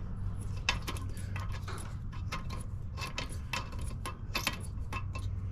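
Light, irregular metallic clicking and rattling as a spark plug is worked by hand in the stripped spark-plug threads of a lawn mower's cylinder head, loose and not catching. A steady low hum runs underneath.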